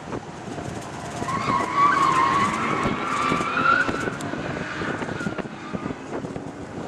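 Car on a race track: a high squeal that rises in pitch, starting about a second in and lasting about three seconds, over a steady rumbling car noise.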